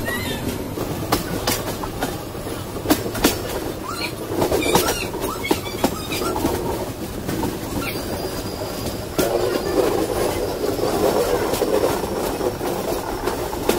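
Express train's coaches running on a curve, heard from an open coach door: a steady rumble of wheels on rail with irregular sharp clicks as the wheels cross rail joints and points. A faint wheel squeal starts about eight seconds in.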